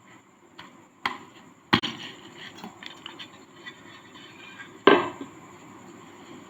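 Dried sand cake being shaved and crumbled, crunchy and gritty. There are sharp cracks about a second in, again just after, and near the five-second mark, with small crackling crumbles between them.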